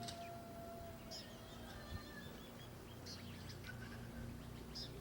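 Faint birds chirping, with short high calls about once a second and a quick run of chirps near the middle, over a low steady hum.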